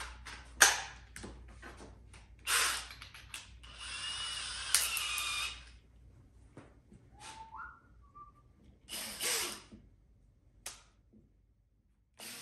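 Cordless drill, spun on and off in short runs with a steady whir for a couple of seconds about four seconds in. Sharp clicks and knocks of the drill and tools being handled come before it.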